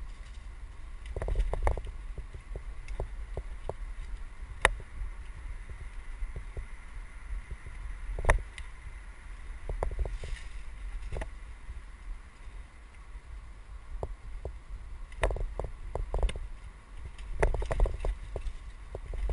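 Mountain bike rolling fast over a dirt trail, heard from a helmet camera: a steady low rumble with irregular clicks and knocks as the bike rattles over bumps, a few sharper knocks standing out.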